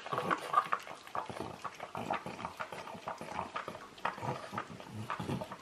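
French bulldog licking peanut butter off a silicone lick mat: a quick, irregular run of licks and tongue smacks.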